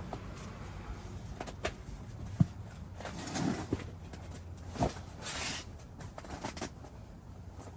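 Scattered knocks and thumps with two short bursts of rustling, the sound of objects being handled and moved about; the loudest is a single sharp thump about two and a half seconds in.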